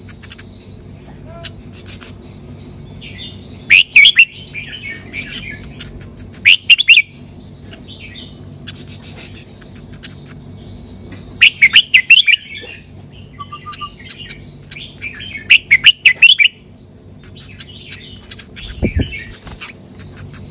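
Red-whiskered bulbul singing: four loud, quick song phrases a few seconds apart, with softer chirps in between.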